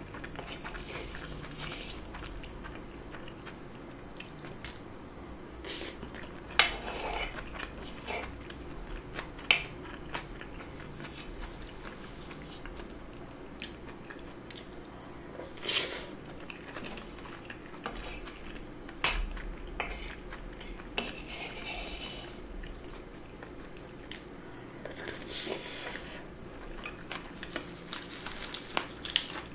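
Close-miked eating: a wooden spoon scraping and knocking against a bowl as rice is scooped, with chewing in between. The sharp clicks and scrapes come every few seconds.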